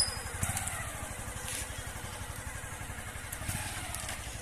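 A motorcycle engine running at low revs, with a sharp click right at the start.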